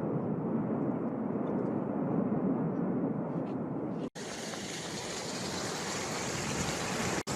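Steady low rumbling roar of the erupting La Palma volcano. About four seconds in it cuts to a brighter, hissing rush.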